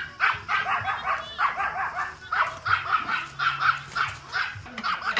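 A dog barking rapidly and without a break, several sharp barks a second.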